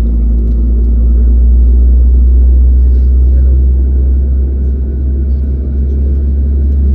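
Steady low rumble inside the cabin of an Airbus A321neo, its CFM LEAP-1A engines running at low power with a constant hum while the aircraft is on the ground before takeoff.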